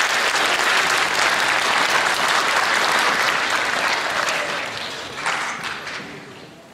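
Audience applauding, dense and steady at first, then thinning out over the last couple of seconds, with a short swell of clapping about five seconds in before it dies away.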